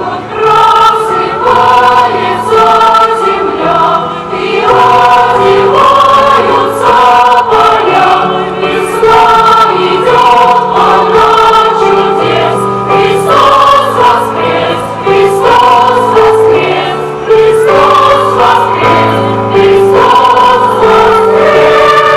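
A choir singing in several parts, holding sustained chords that change about every second.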